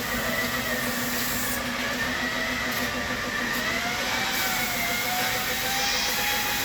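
Handheld power polisher running steadily on car paint, a continuous motor whir with a faint pitch that drifts slowly up and down as the load changes.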